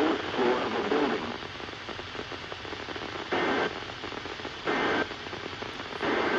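NOAA Weather Radio receiver hissing with static as a broadcast voice trails off. Then come three short data bursts, about a second and a half apart: the SAME header tones that open an Emergency Alert System warning.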